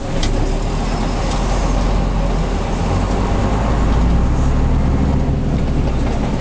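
The Bristol MW5G's Gardner 5HLW five-cylinder underfloor diesel, heard from inside the coach. It gets louder at the start as the coach pulls away from the traffic lights under load, then keeps running strongly with a deep, steady note.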